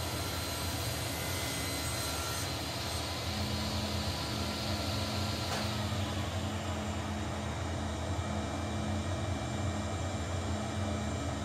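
SawStop table saw ripping the rough edge off an oak board, the blade cutting steadily; a little over halfway through the cut ends and the blade runs on freely.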